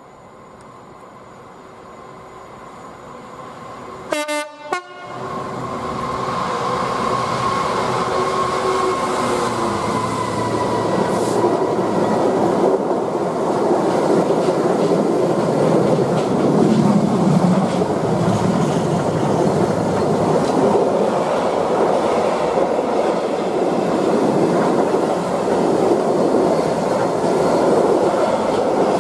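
Freightliner Class 66 diesel locomotive hauling a container freight train, getting louder as it approaches. It sounds a short horn blast about four seconds in. A tone drops slightly in pitch as the locomotive goes by, followed by the steady rumble and clatter of the container wagons rolling past.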